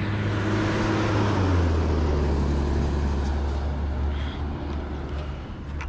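Fire truck driving past: a deep engine drone whose pitch drops as it goes by, loudest about one and a half seconds in and then slowly fading.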